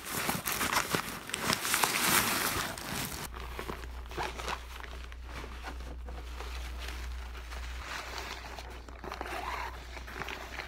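Plastic shopping bag crinkling and rustling as it is handled: dense, loud crinkling for about the first three seconds, then softer, intermittent rustles over a steady low hum.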